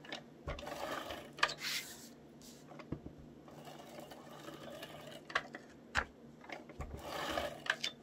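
Handheld adhesive tape glider (ATG tape gun) being worked over paper: short whirring, rattling runs of its mechanism, each about half a second, with sharp clicks between them as the tape is laid and the sheet is pressed down.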